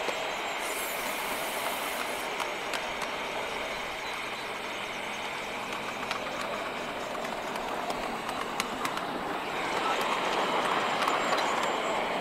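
7¼-inch gauge miniature train running along its track: a steady rattle of wheels on rail with occasional sharp clicks, growing louder about ten seconds in.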